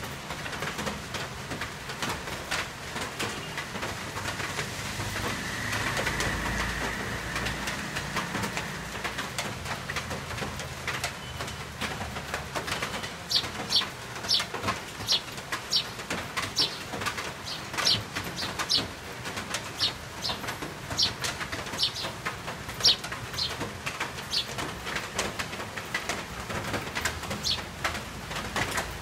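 Sparrows chirping: short, sharp high chirps repeating about once or twice a second through the second half, over a steady hiss of rain.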